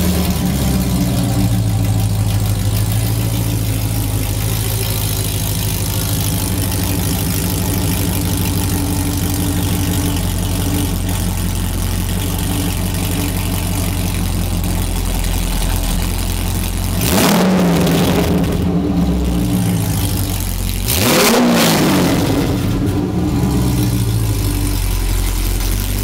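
LS3 6.2-litre V8 breathing through newly fitted Kooks headers, idling just after starting, its high idle settling down in the first couple of seconds. The throttle is blipped twice, about 17 and 21 seconds in, each rev rising and falling back to a steady idle.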